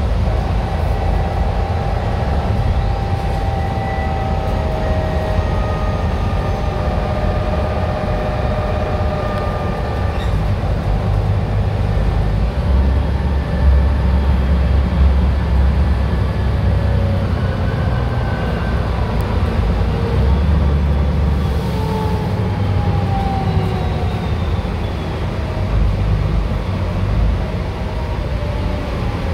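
Dennis Trident double-decker bus's diesel engine running under way, a heavy low rumble that swells twice as it pulls harder, with thin whining tones above it that slide in pitch.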